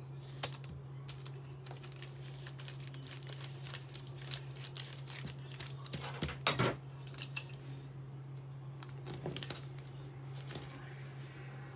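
Hands working pie dough on a sheet of baking paper: rustling and crinkling of the paper with scattered small clicks and taps, and one louder rustle about six seconds in. A steady low hum sits underneath.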